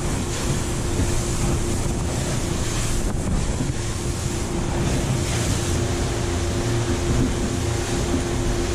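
Wind rushing over the microphone of a boat running at speed through choppy sea, over the steady hum of its twin outboard motors.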